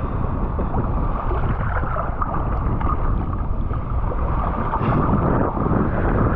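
Seawater sloshing and splashing around a microphone held at the surface, mixed with wind buffeting it: a steady, dense noise with small crackles and no engine tone.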